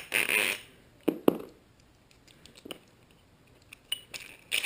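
Small metal parts of a bearing-puller tool being handled: a brief rustle, then two sharp clicks a little after a second in, followed by a few scattered fainter clicks.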